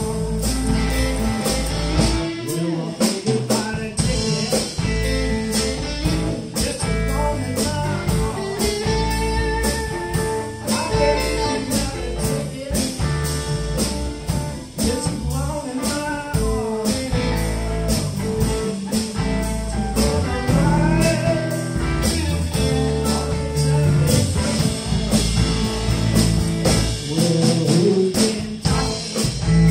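Live blues band playing: two electric guitars, electric bass and drum kit, with a steady drum beat throughout.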